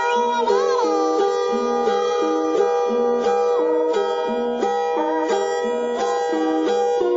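Music: a plucked string instrument playing a repeating figure over a steady low pattern, with a held melody line that bends up and down in pitch.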